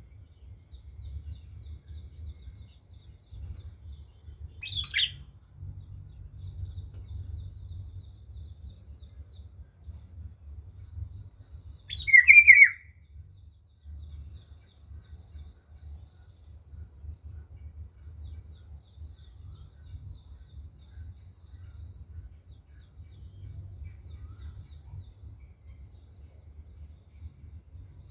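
A bird gives two short, sharp calls, one about five seconds in and a louder one about twelve seconds in. Beneath them run a steady high-pitched buzz and a low rumble.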